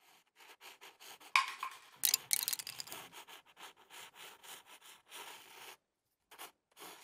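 Pencil scribbling on paper in quick, scratchy strokes, loudest between about one and three seconds in and dying away after about six seconds.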